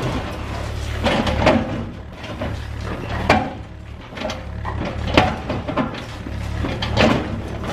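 Cat 305E2 mini excavator's diesel engine running steadily under load while it tears into concrete and rebar, with sharp crunching impacts about every two seconds, four times.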